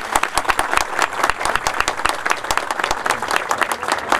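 Crowd applauding: many people clapping together in dense, steady applause.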